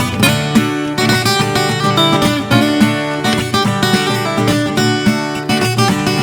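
Background music led by strummed acoustic guitar, with a steady rhythm of plucked chords.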